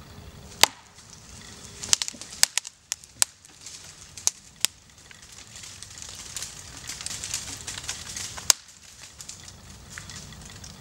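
Wood fibres in the hinge of a poplar's felling cut cracking and popping as the hinge bends under the tree's lean: a string of sharp cracks, most of them in the first few seconds, then a swelling hiss that ends with one last loud crack about eight and a half seconds in.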